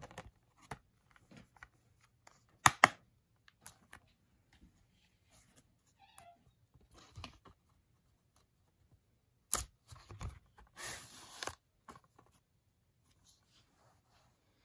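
A plastic Blu-ray case being handled: it snaps shut with two sharp clicks about three seconds in, among scattered light taps, and later gives another loud click and a brief scraping slide.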